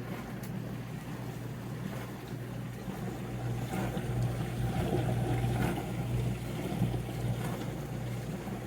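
Portable countertop dishwasher running: a steady low motor hum with water spraying inside, swelling slightly in the middle.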